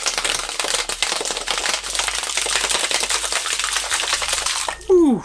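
Metal cocktail shaker being shaken hard, with a large ice cube and orange sorbet rattling inside in a fast, steady clatter. The shaking breaks up the sorbet and chills the drink. Near the end comes a short, loud sound falling in pitch.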